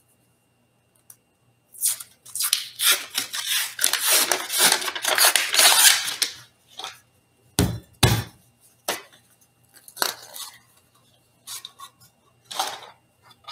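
A cardboard tube of refrigerated crescent roll dough being opened: about four seconds of crinkling and tearing as the paper wrapper is peeled off, then two dull thumps close together about eight seconds in as the tube is burst open, followed by a few light taps.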